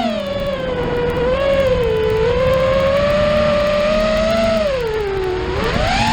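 FPV quadcopter's brushless motors whining, the pitch rising and falling with the throttle. The pitch sags about five seconds in, then climbs sharply near the end.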